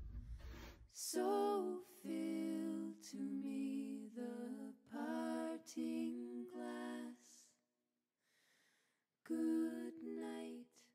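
A woman's voice singing unaccompanied, in held notes and short phrases. It pauses about seven and a half seconds in and comes back for one last phrase near the end.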